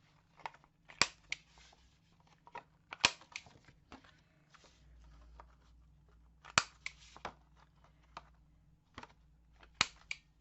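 Handheld corner rounder punch cutting the corners of paper: four sharp snaps a few seconds apart, each followed closely by a lighter click, with soft tapping between them.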